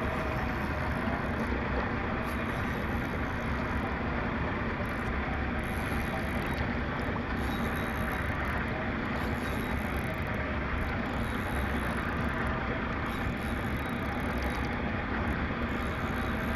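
Boat engine running steadily, under a continuous wash of water and wind noise.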